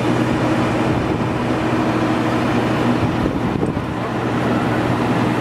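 Steady mechanical drone with a constant low hum, the running noise of airport ground machinery beside a parked Boeing 737-800 whose engines are shut down.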